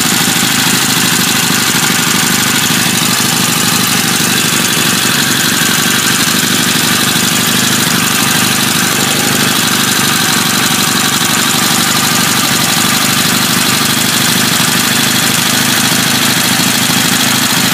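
Chang Jiang M1 motorcycle's flat-twin engine idling steadily.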